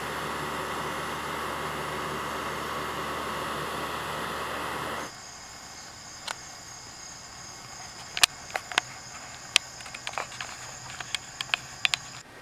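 Steady rushing noise with a low hum that cuts off abruptly about five seconds in. It is followed by two steady high-pitched tones with a scatter of sharp clicks and taps over the last few seconds.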